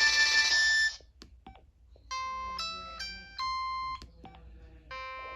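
An LG VX3200 flip phone's speaker plays: a polyphonic ringtone cuts off about a second in, followed by a few faint clicks. A short electronic alert of four beeping notes then plays and starts again near the end.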